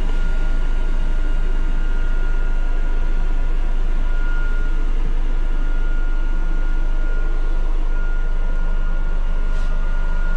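Scania N250UD double-decker's engine idling, a steady low rumble with a constant high-pitched whine on top.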